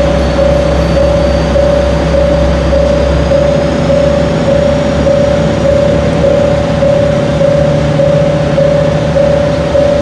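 KiHa 40-series diesel railcars running, one idling at the platform and one rolling slowly in, a steady low engine drone whose deepest part eases about three seconds in. Over it an electronic warning tone pulses on and off about one and a half times a second.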